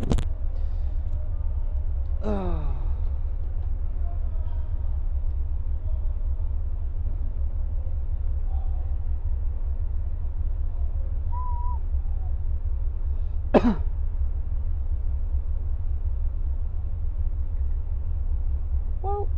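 Bus diesel engine idling, a steady low rumble heard from the driver's cab. A few brief sounds come over it: a short falling sound about two seconds in, and a louder, sharper one about fourteen seconds in.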